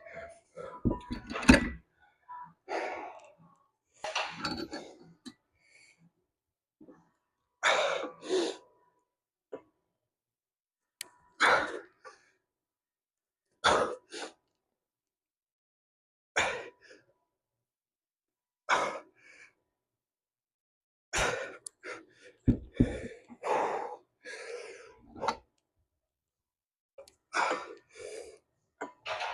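A man's forced exhales and sighs, short and a couple of seconds apart, sometimes in pairs, as he works through a set of weight-lifting reps. A few sharp knocks are heard among them.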